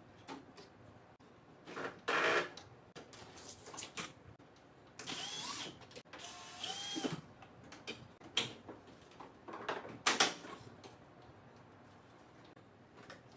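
The casing of an air conditioner's indoor unit being taken apart. A small cordless screwdriver motor whirs twice in quick succession about five seconds in, its pitch sliding up and down, and plastic panel parts click and knock.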